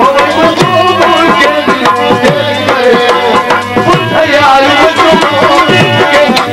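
Live Sindhi folk music in an instrumental passage: hand drums keep a quick, even rhythm under a melody line.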